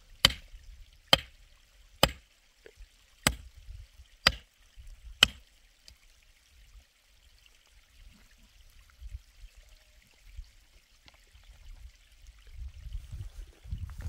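A hand tool chopping with sharp strikes about once a second, six times, stopping about five seconds in; after that only a faint low rumble remains.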